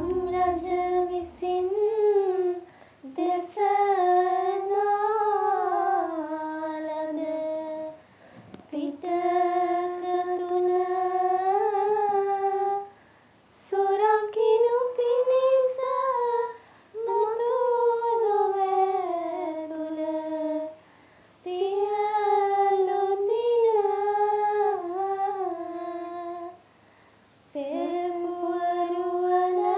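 Two girls singing a slow song together in unison, with no instrument, in long held notes and phrases a few seconds long, broken by short pauses for breath.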